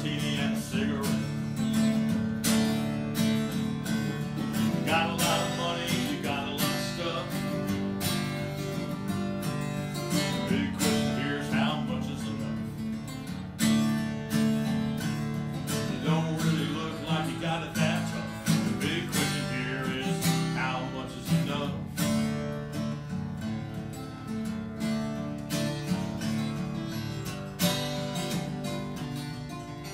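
Acoustic guitar strummed steadily in a blues song, with regular strokes over ringing low chords.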